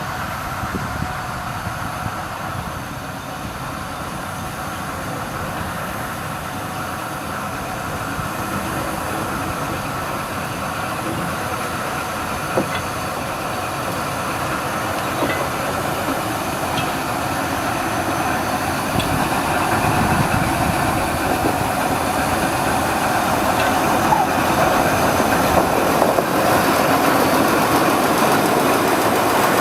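Krupp D300 diesel-hydraulic shunting locomotive running, its engine a steady drone with a whine, growing gradually louder throughout. A few faint clicks sound over it.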